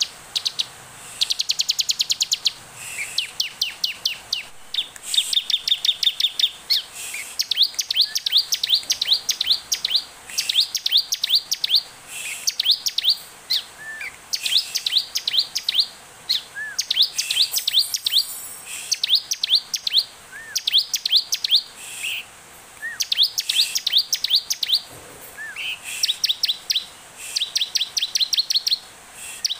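Bar-winged prinia (ciblek) in full song: rapid trains of sharp, high notes about a second long, repeated over and over with short pauses, with an occasional lower note between.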